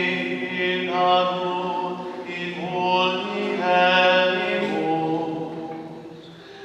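Slow sung church music: voices holding long notes that step from one pitch to the next about every second, fading near the end.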